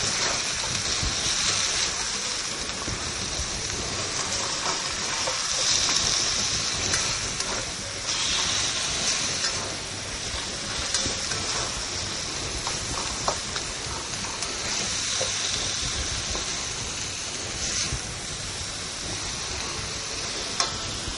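Sliced carrots and onion rings sizzling in hot oil in a wok as they are stir-fried, the hiss swelling and easing as the vegetables are tossed, with a few sharp ticks of the utensil against the wok.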